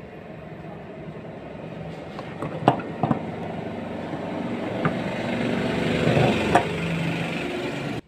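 A steady engine-like drone that slowly grows louder, with a few sharp clicks from copper tubing being handled. It cuts off suddenly at the end.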